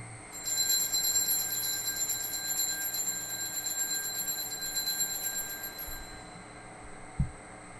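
Consecration bell rung in a fast, continuous peal during the elevation of the chalice, fading out about six seconds in; it signals the elevation at the consecration. A soft thump follows near the end.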